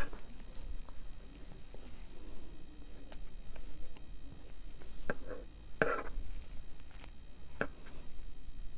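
Pencil marking dots on cloth along a clear plastic ruler: faint handling rustle, with a few short, sharp clicks and taps in the second half.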